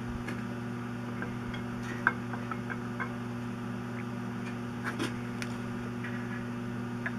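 A few light metallic clicks and ticks, the loudest about two seconds in, from the cam gear of an International Harvester 444 engine. It is being slid into the block and turned to mesh with the crankshaft gear while the timing marks are lined up. A steady electrical hum sits underneath.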